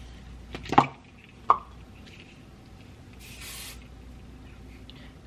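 Two sharp clicks, then one short hiss of Sebastian Shaper aerosol hairspray, under a second long, about three seconds in.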